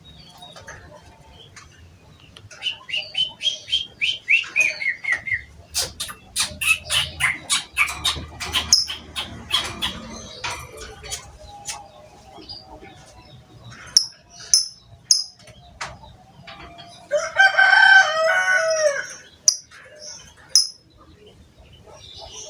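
Lovebirds singing: a falling run of whistled notes, then a long rapid chattering trill (the "ngekek" song), scattered high chirps, and a loud drawn-out call about three-quarters through.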